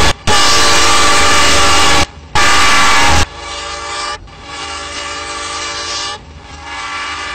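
Diesel freight locomotive's air horn sounding a series of steady blasts: the end of one loud blast, two more loud ones (a long one, then a shorter one), then three quieter, sustained blasts separated by short gaps.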